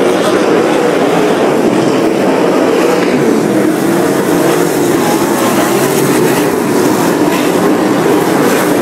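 A pack of sprint cars racing past, their V8 engines blending into one loud, steady drone.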